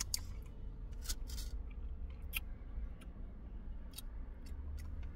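Wet lip smacks and finger-licking while eating barbecue ribs in sticky sauce: about half a dozen short, sharp smacks spread through, over a low steady rumble.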